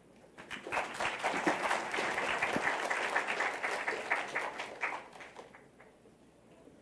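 Audience applauding: many hands clapping densely, starting about half a second in and fading out over the last second or two.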